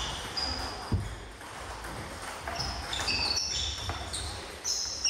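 A table tennis rally in a sports hall: the ball clicks off bats and table, sports shoes give short high squeaks on the floor, and there is a dull thump about a second in.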